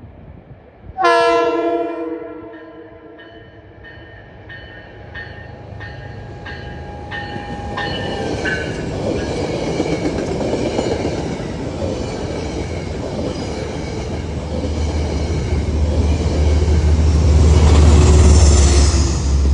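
Train horn sounding about a second in, its chord held for several seconds before fading. Then a train approaches with a growing rumble and rail noise, loudest near the end.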